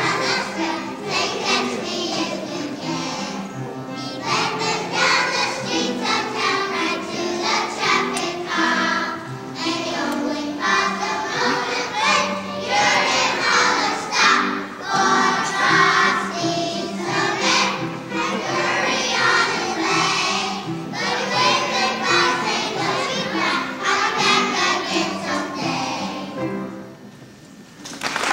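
Children's choir singing together, the song coming to an end about a second and a half before the close.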